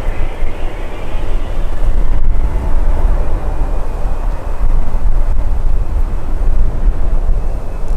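Boeing 777 jet airliner landing: a loud, deep rumble of its engines with a rushing hiss, rising and falling in strength.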